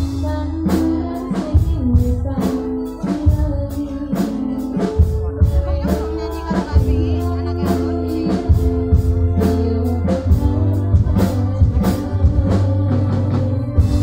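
Javanese gamelan playing Banyumasan lengger music: sustained, ringing metallophone and gong tones in a steady pattern, punctuated by frequent sharp hand-drum (kendang) strokes, with a woman's singing voice carried over the stage microphones.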